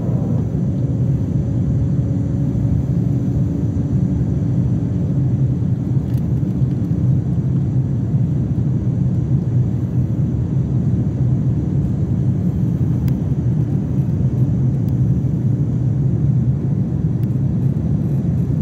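Steady low roar of an Airbus A350's Rolls-Royce Trent XWB jet engines and the rushing air, heard inside the cabin during the climb after takeoff, with a faint steady hum that fades out near the end.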